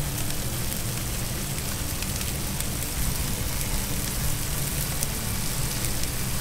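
Steady hiss of rain falling, mixed with fish and wine simmering in cast iron skillets on a gas grill, with faint scattered crackles.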